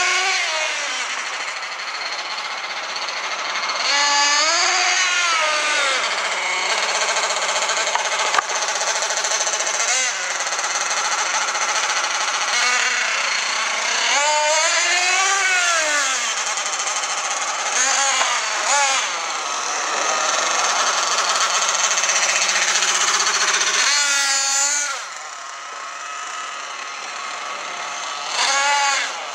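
Nitro glow engine of a Thunder Tiger Sledge Hammer S50 1/8-scale RC monster truck, revving up and down again and again as it is driven. It holds a high, steady note for a few seconds near the end, then drops back. A single sharp click sounds about eight seconds in.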